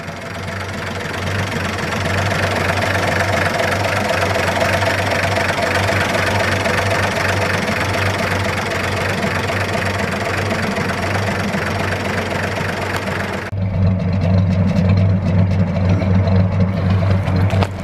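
1949 GMC pickup's original 228 cubic-inch inline six idling steadily with the hood open. About two-thirds of the way through, the sound switches to the exhaust at the rear of the truck, deeper and a little louder.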